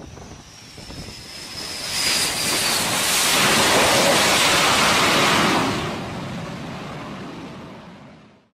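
F/A-18-type fighter jet's engines as it lands on a carrier deck: a high turbine whine, then a loud jet roar that builds about two seconds in, holds for a few seconds and dies away, cutting off just before the end.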